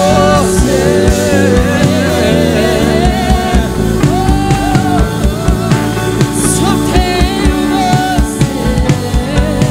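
Live gospel worship band playing: voices singing a sustained, wavering melody over keyboard, electric guitar and a drum kit keeping a steady beat.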